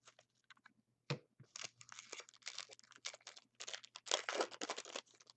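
Foil wrapper of a hockey card pack being torn open and crinkled. A few light clicks and a tap come in the first second or so, then dense crinkling for about three and a half seconds.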